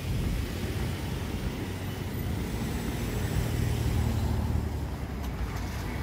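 Street traffic: a steady low rumble of car engines and tyres, growing a little stronger in the middle as a vehicle goes by.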